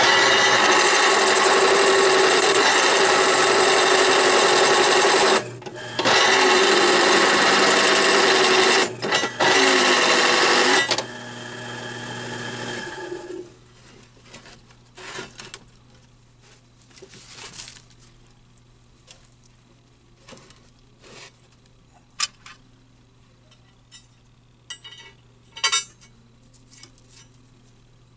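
A drill press with a countersink bit cutting into a steel plate, a loud steady grind with a ringing tone in it, broken by two short pauses. A little before halfway it runs on more quietly, then stops, and a few light clicks and clinks of metal follow.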